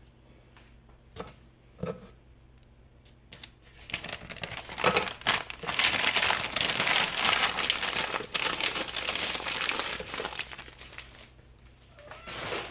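Newspaper being gathered up and crumpled by hand around vegetable peelings. A few light knocks come first, then several seconds of loud paper crinkling that fades out near the end.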